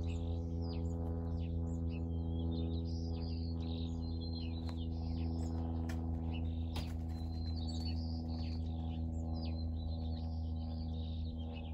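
Small birds chirping in quick, scattered calls over a steady, low humming drone that is the loudest sound.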